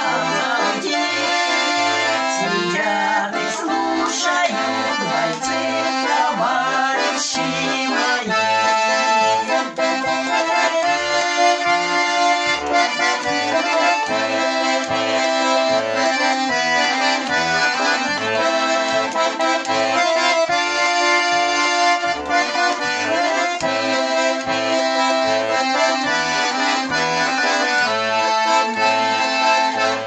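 Russian garmon (button accordion) playing a waltz tune with a steady bass-and-chord beat from the left hand. For about the first eight seconds two women's voices sing along, then the garmon carries on alone as an instrumental ending.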